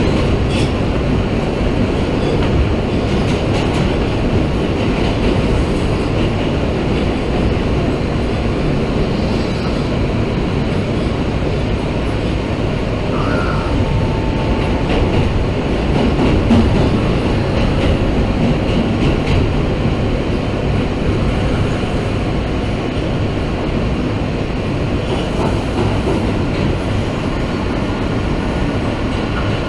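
New York City subway train running between stations: a steady rumble and rattle of the car in motion.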